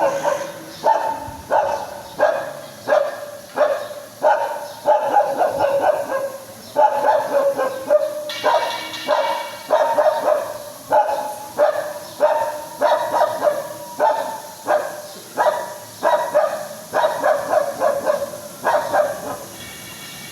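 A dog barking in a high-pitched tone, again and again, about one or two barks a second, sometimes in quick runs. It stops about a second before the end.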